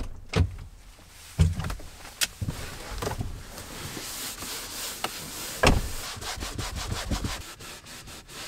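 Hands handling the Navdy's short dashboard mount: rubbing and scraping of plastic parts with a few sharp knocks.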